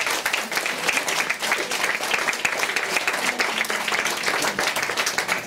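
Audience applauding: steady, dense clapping that begins to thin out near the end.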